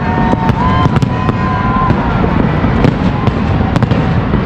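Dense fireworks display going off continuously: a steady low rumble of booms with many sharp crackling pops, and a wavering whistle through the first two seconds.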